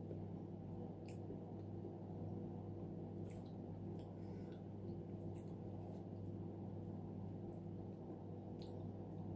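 Faint eating sounds of soft boiled sweet potato: a few scattered soft mouth clicks and smacks over a steady low hum.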